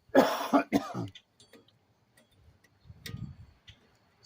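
A man's short throaty vocal noise, like a cough or throat clearing, in the first second, followed by scattered faint metallic clicks and a dull knock about three seconds in, from small parts being handled.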